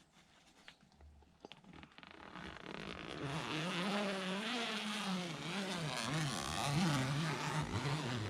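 A motor vehicle passing, its engine note wavering up and down over a rising then fading hiss of road noise.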